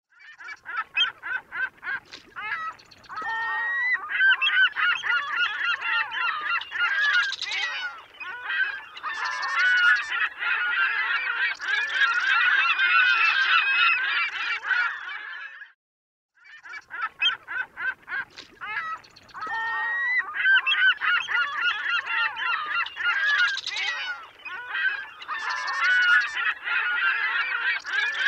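A flock of geese honking, many calls overlapping into a dense chorus. It breaks off to silence for about a second halfway through, then starts again with the same run of calls, as if the recording were replayed.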